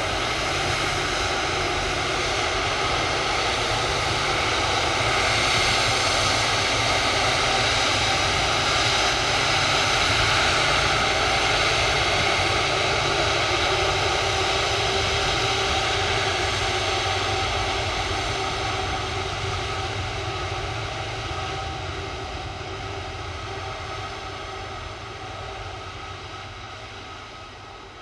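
Airbus A330-300 jet airliner's engines running as it taxis past: a steady rush of noise with high whining tones. It grows louder to a peak about ten seconds in, then fades away over the last several seconds.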